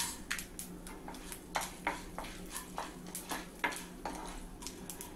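Wooden spatula stirring gram dal and urad dal frying in oil in a nonstick pan: scattered, irregular sharp clicks and taps over a faint sizzle.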